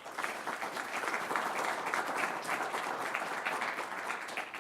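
Audience applauding at the end of a talk, a dense patter of many hands clapping that starts abruptly and fades out near the end.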